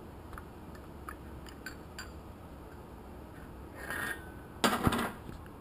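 Light metal clinks and a brief clatter of automatic-transmission clutch parts being handled as the return-spring retainer is lifted off the drum in a spring compressor. A few faint ticks come first, then a louder clatter near the end.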